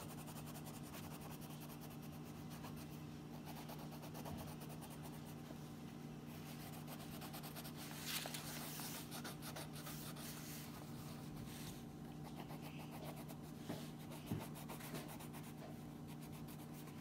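Brown wax crayon scratching across colouring-book paper in dense, continuous strokes, faint, with a steady low hum underneath.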